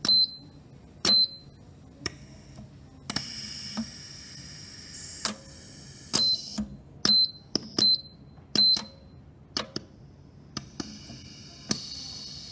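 Automated positioning stage and clamps of a demonstration machine cycling: a dozen or so sharp metallic clacks as the parts reach their end stops, where touch switches detect the stage, some followed by a short high tone, with two spells of air hiss from the cylinders.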